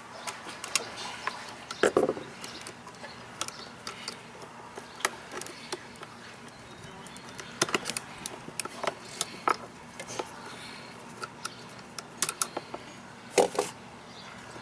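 Irregular small clicks, taps and knocks of hand tools and metal hardware being handled while working on an electrical outlet, the strongest about two seconds in and again near the end.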